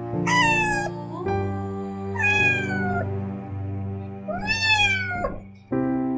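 A cat meowing three times, each meow a plaintive call that falls in pitch, over soft background music with long held notes.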